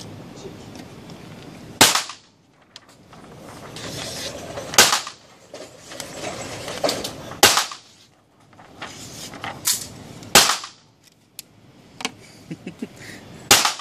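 Single gunshots on an indoor shooting range, about five loud reports a couple of seconds apart, each with a short echo off the range walls, with a few fainter clicks between them.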